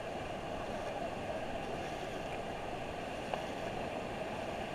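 Steady rush of river water around a raft running the river, with one faint knock about three seconds in.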